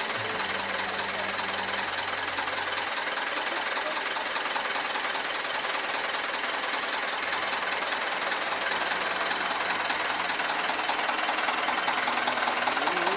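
Diesel truck engine idling close by: a steady clatter and hiss.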